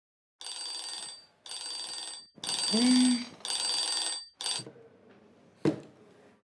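An alarm ringing in four bursts about a second apart, with a shorter fifth burst, then a single click.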